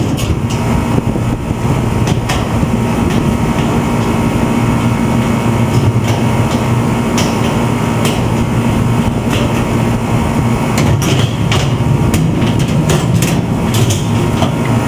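Air-conditioner condensing unit with only its condenser fan running in a steady hum, the compressor silent because it is not starting (a broken red run wire to the compressor). Scattered sharp clicks and knocks of a screwdriver on the unit's sheet-metal cabinet, bunched together near the end.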